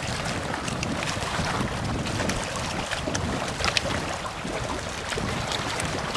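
Wind blowing on the microphone, with small waves lapping at the shore of a choppy lake. A few short clicks, the loudest a little under four seconds in.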